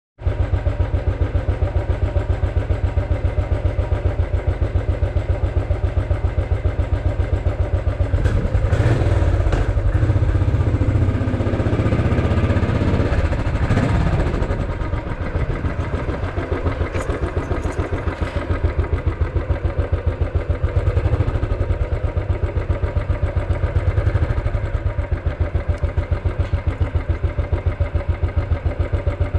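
Royal Enfield 500's single-cylinder engine running with an even, rapid beat of exhaust thumps. A louder, rougher stretch with added noise comes between about eight and fourteen seconds in, then it settles back to the steady beat.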